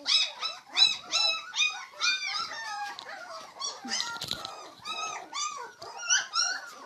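Several young puppies whining and yelping over one another, high-pitched cries two or three a second. They are hungry puppies crying to be fed milk.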